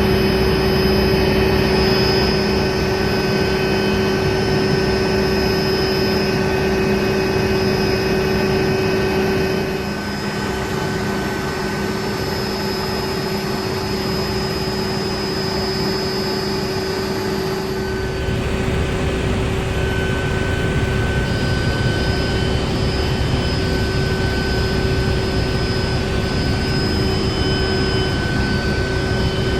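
Helicopter in flight, heard from inside the cabin: a steady, loud engine and rotor noise with constant whining tones, which shift a third of the way in and again a little past the middle.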